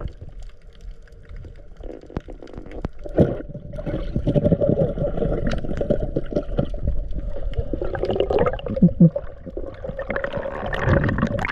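Underwater sound as heard by an action camera during a spearfishing dive: muffled water noise with many sharp clicks and knocks over a steady hum. Splashing builds near the end as the camera rises toward the surface.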